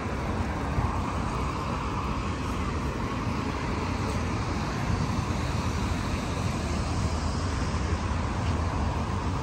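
Steady outdoor noise, an even rushing wash with a low rumble, tagged as traffic.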